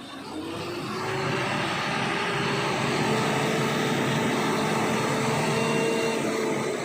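Engine of a large construction vehicle revving up. Its pitch and loudness rise over the first second or so, then it runs steady at high revs.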